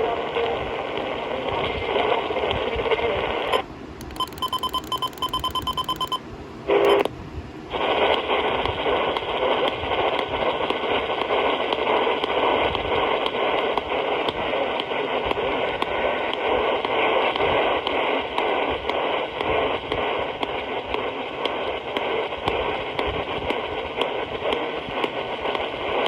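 Heavy static and hiss on a weak AM radio signal. About four seconds in, the static gives way for two seconds to a rapid string of short, pulsing electronic tones, typical of an Emergency Alert System signal broken up by poor reception. The static returns after a short loud burst.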